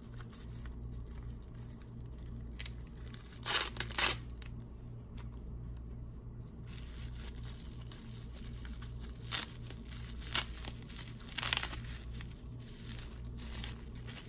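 Plastic packaging being torn open and crinkled by hand, in short rustling bursts: two close together about three and a half seconds in, and several more later on.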